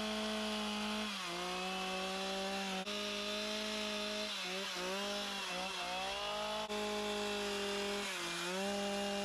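Carving chainsaw running at high revs while cutting detail into wood, its pitch sagging briefly each time the chain bites in: about a second in, several times in the middle, and once near the end.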